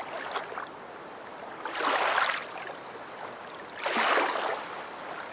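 Rushing water, swelling in a wash about every two seconds.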